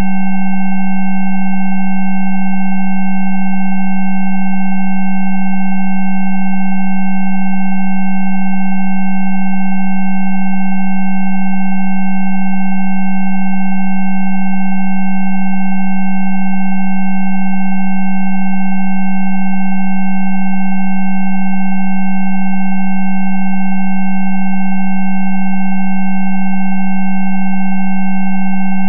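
Synthesised Rife frequency tones: several pure electronic tones sound together, steady and unchanging, the lowest by far the loudest with fainter higher pitches stacked above it.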